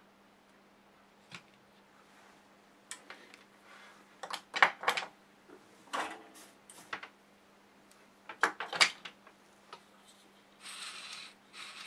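Hands setting down multimeter test probes and picking up a soldering iron on a workbench: a string of clicks and knocks, then a short scraping hiss near the end.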